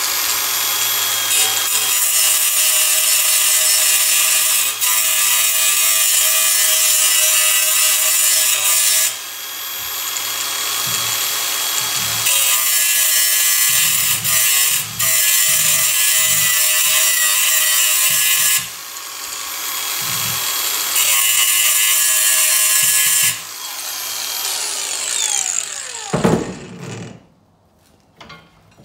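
Makita cordless angle grinder grinding steel angle held in a vise, in three long passes with the motor running freer and quieter between them. Near the end the grinder is switched off and its motor winds down to a stop.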